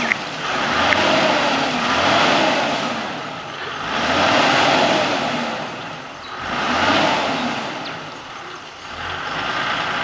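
A four-wheel drive's engine revving up and easing off several times as it pushes through deep water.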